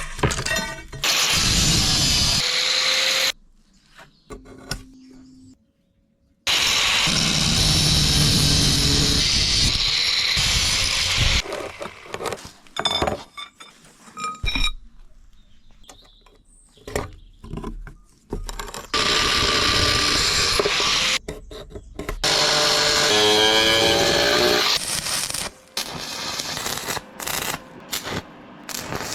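Steel being worked with an angle grinder and a flux-core MIG welder in several long bursts of harsh noise. Between the bursts come short clanks and knocks of steel being handled.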